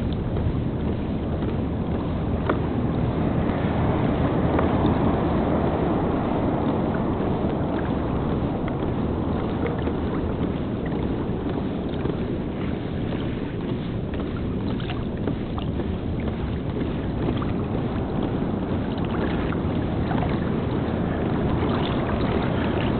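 Steady wind noise on the microphone over water lapping against a kayak's hull on the open sea, with a few faint ticks.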